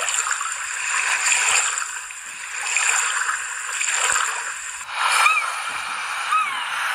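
Sea waves washing onto a beach in slow swells. About five seconds in the surf gives way to gulls, with two short arching cries.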